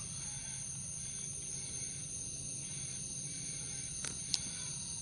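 Insects trilling in a steady, high-pitched drone over a faint low rumble, with two sharp clicks close together about four seconds in.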